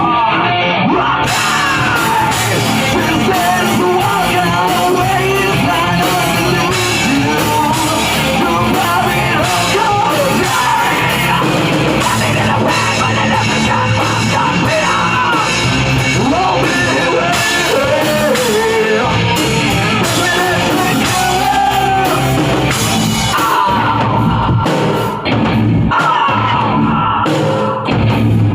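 Loud rock band music with a heavy-metal edge, a vocalist singing and yelling over the instruments.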